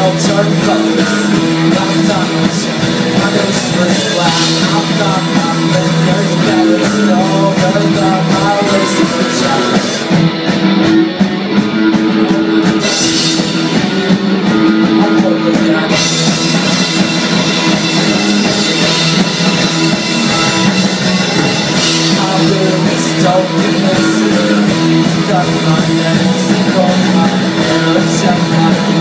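Live rock band playing loud, with electric guitar, bass guitar and drum kit. The high sizzle drops out for several seconds near the middle, then comes back.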